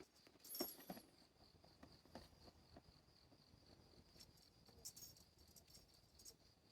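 Faint, steady insect chirping in an evenly pulsing high trill, typical of crickets on a summer evening, with scattered light clicks and taps and a brief high squeak about half a second in.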